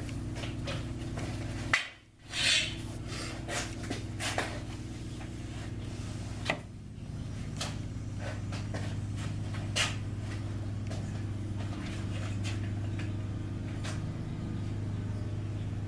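Scattered clicks and knocks as a freshly turned Razor scooter wheel is pulled off the lathe and test-fitted on the scooter, over a steady low hum.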